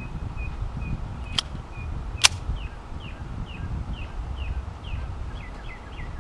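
Two shots from a Ruger LC9S compact 9mm pistol, a little under a second apart, the second sharper and louder. A bird calls throughout with short down-slurred chirps, about three a second after the shots.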